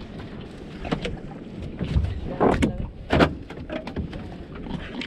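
Wind on the microphone and water moving around a small open fishing boat at sea, with a couple of sharp knocks about two and a half and three seconds in.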